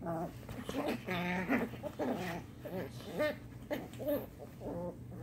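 Dogs vocalizing in play: a string of about nine short pitched calls, several rising and falling in pitch.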